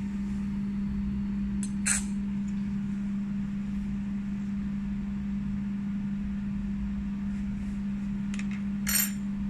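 Steady low hum, with a sharp clink about two seconds in and a louder clink that rings briefly near the end.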